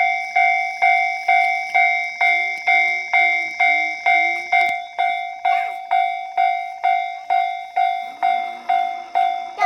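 Japanese railway level-crossing warning bell (kan-kan type) ringing steadily, about two strikes a second, each strike ringing on until the next: the crossing signalling that a train is approaching.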